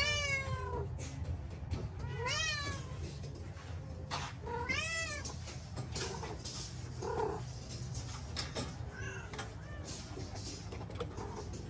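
Domestic cats meowing: three clear meows about two seconds apart, each rising then falling in pitch, then a few fainter ones, over a steady low hum.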